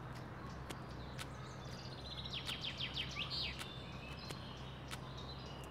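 Outdoor ambience with a low steady hum, over which a songbird sings one quick run of about a dozen chirps, from about two seconds in to about three and a half. A few faint sharp ticks are scattered through it.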